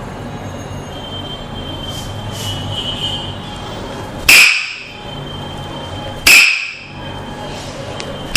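Sharp, ringing wooden knocks of a Tok Sen mallet striking its wooden stick. Two strikes about two seconds apart from about halfway in, and a third at the very end, each dying away within about half a second.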